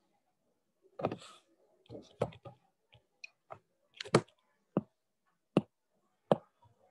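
A series of about ten sharp knocks and clicks at irregular intervals, the first a longer scraping burst and the loudest about four seconds in.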